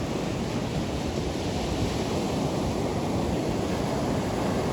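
Steady surf of sea waves washing on a beach, with wind blowing across the microphone.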